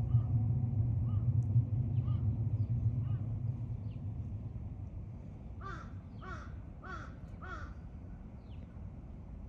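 A crow cawing four times in quick succession just past the middle. Before that, for about the first three seconds, a low rumble is the loudest sound, and it fades away. Faint small-bird chirps come through now and then.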